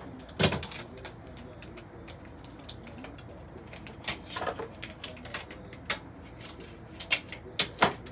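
Packing tape being pulled from the roll and pressed onto fabric: short sharp rips and crackles, the loudest about half a second in and several more close together near the end.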